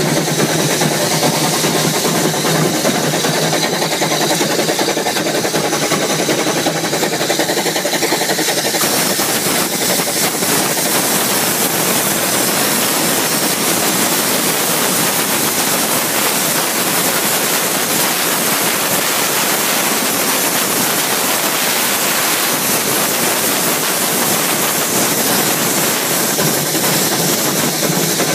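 Narrow-gauge train on the move, a loud, steady running noise with hissing steam.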